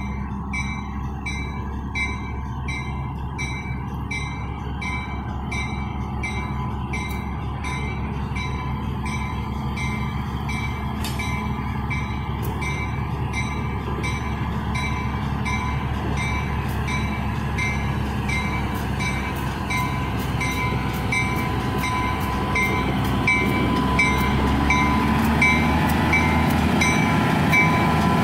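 GE 44-ton center-cab diesel-electric switcher running and rolling slowly along the track, its diesel drone growing steadily louder as it comes closer. A bell rings in regular strikes the whole time.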